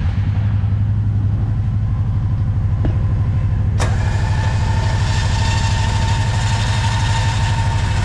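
Kawasaki Teryx4 800's V-twin engine idling just after starting. About four seconds in, a click and a steady whine as the Warn ProVantage winch motor starts reeling the new rope onto its drum.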